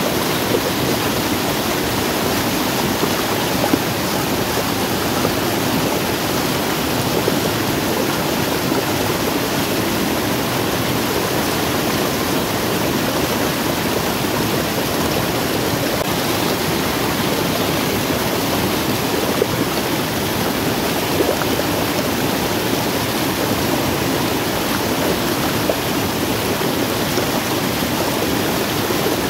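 Muddy stream rushing over a small waterfall close by: a loud, steady rush of water.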